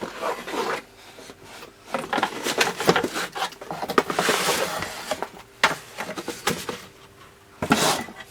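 Soldering-station accessories and their packaging being handled and unpacked: irregular rustling with light clicks and knocks, busiest in the middle and again briefly near the end.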